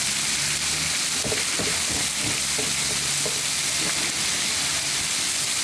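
Hot oil sizzling and crackling steadily in a large aluminium wok, with a heap of red spice paste frying on top of it. A low steady hum runs underneath.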